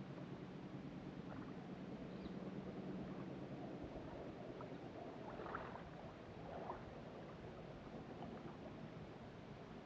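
Faint riverside ambience: small waves lapping against the rocky bank, with a low steady hum for the first few seconds and a few brief faint chirps about halfway through.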